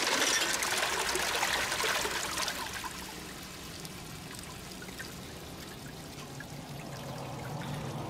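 Water rushing down an aluminium sluice over a rubber wave mat, dying down to a quieter trickle from about three seconds in as the flow tapers off.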